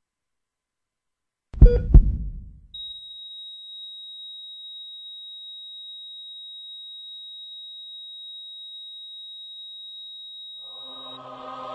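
Heartbeat sound effect: one heavy double thump, followed by a long steady high-pitched beep, a heart monitor's flatline tone signalling death. Choir music begins to fade in near the end.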